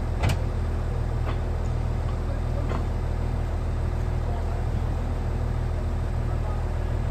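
Hyundai R360LC-7A excavator's Cummins QSM11 diesel engine idling steadily. A few sharp knocks of boots on the machine's steel come as a man climbs down, the loudest just after the start.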